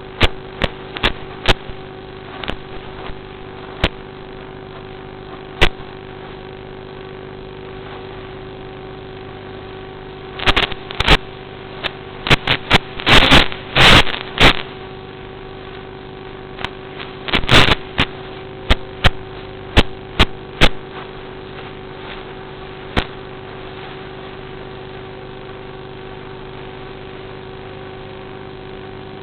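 Steady electric-motor hum of a Phoenix V2 FPV model plane, heard through a narrow, lo-fi audio feed, broken by scattered sharp crackles and pops that come thickest in two spells in the middle.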